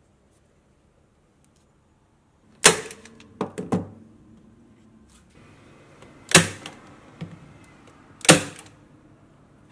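Corded electric staple gun firing three sharp shots into thin lattice strips on plywood. The shots come a few seconds apart, and lighter clicks and knocks of handling follow the first.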